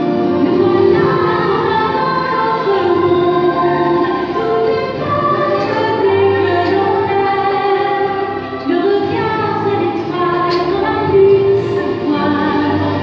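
Music with singing, the voices holding long notes that change pitch every second or so.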